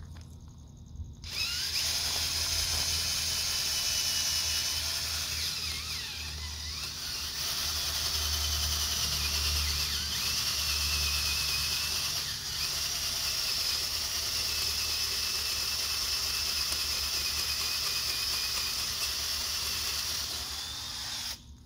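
Cordless drill driving a long auger bit into the ground, the motor whining steadily under load. It starts about a second in and stops just before the end, with its pitch and level sagging briefly twice as the bit bites.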